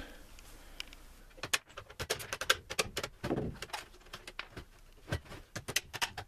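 Irregular sharp clicks and knocks on the housing of a WFCO 8955 power center as it is handled and struck with a hammer to knock out its knockouts, some in quick clusters.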